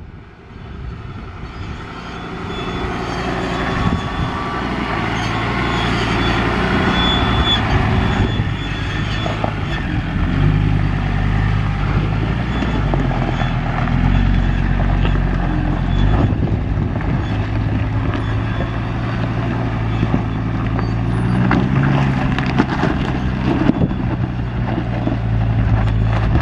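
Ford Ranger PX ute's engine pulling under load as it crawls up a steep rutted dirt hill, its revs stepping up and down, with tyres crunching over loose dirt and stones.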